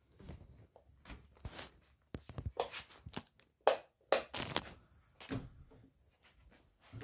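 A string of irregular knocks and rustles, the loudest of them a little past the middle.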